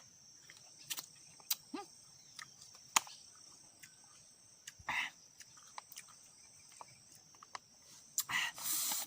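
Faint mouth sounds of someone eating tamarind with spicy shrimp paste: scattered sharp clicks, and two sharp breaths, a short one about halfway through and a longer one near the end. Insects trill steadily in the background.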